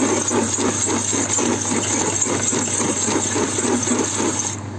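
A tumble dryer drum's support wheel being scrubbed with a metal scrubber while the drum turns, to clear the dirt build-up that makes the dryer noisy. A rhythmic scraping at about four strokes a second over the machine's steady hum, stopping suddenly near the end.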